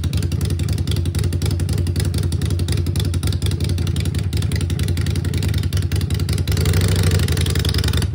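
Harley-Davidson Sportster Iron 883's air-cooled V-twin running through straight pipes at idle, with a fast steady exhaust pulse. It gets a little louder around seven seconds in.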